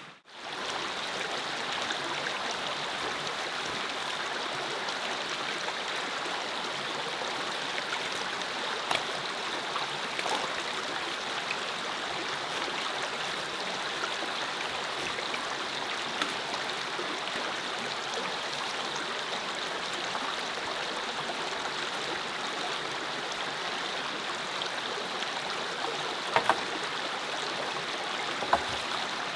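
Mountain creek running steadily over rocks, an even wash of water with no pauses. A few faint clicks, and two sharper knocks near the end.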